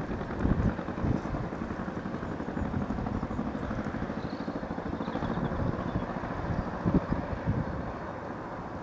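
Distant small narrow-gauge train running along the line, a steady rumble from the locomotive and its coaches, with wind buffeting the microphone.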